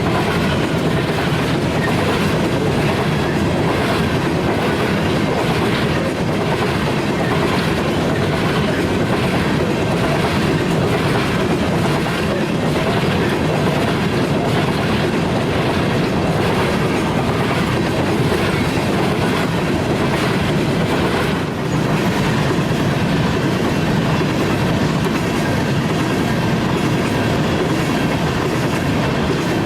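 Freight train rolling past at close range: a steady, loud clatter of railcar wheels over the rail joints.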